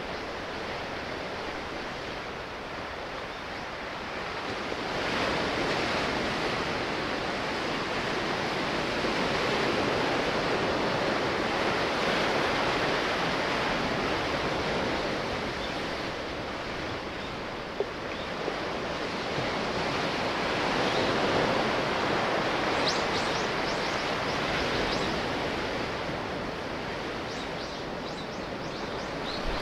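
Sea waves washing and surging, a steady noisy wash that swells and fades every few seconds, with a brief click a little past halfway.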